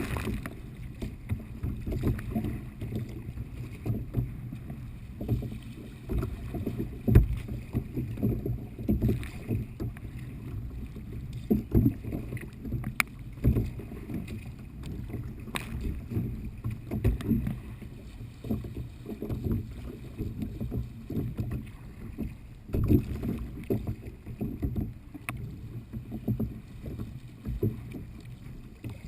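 Water sloshing and slapping against a kayak paddling through light chop, with irregular splashes and an occasional knock, muffled and low-pitched.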